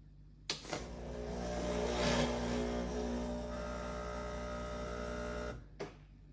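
Breville Dual Boiler BES920XL espresso machine doing a purge during its cleaning cycle: a valve clicks, the pump starts up with a steady hum and water rushing through the group head, runs for about five seconds, then stops with another click.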